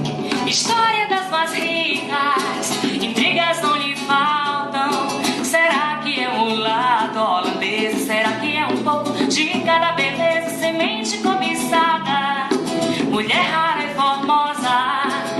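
Recorded song playing: a woman singing over instrumental accompaniment with a steady bass line.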